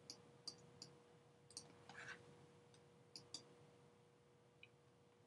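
Near silence with a few faint, scattered clicks of a stylus tapping on a pen tablet during handwriting, over a faint steady hum.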